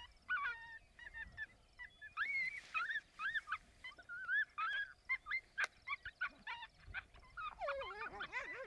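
Coyotes yipping and yowling: a rapid series of short, high, rising and falling calls, with lower wavering howls joining near the end.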